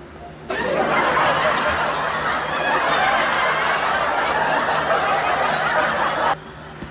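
Laughter that starts suddenly about half a second in and cuts off suddenly near the end.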